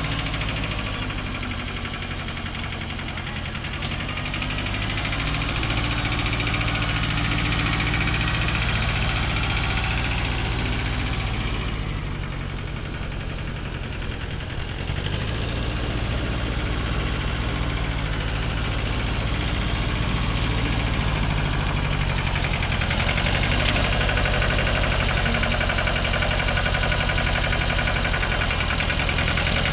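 Satoh Mitsubishi Bull compact tractor engine running steadily, its loudness dipping and swelling a little as the tractor drives and works its front loader in loose dirt.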